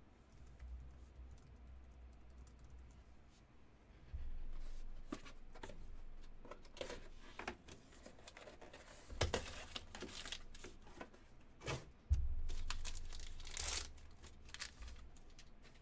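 Paper wrapping being torn open and crumpled by hand, with scattered rustles and clicks, two louder tearing spells in the second half, and a couple of dull bumps against the table.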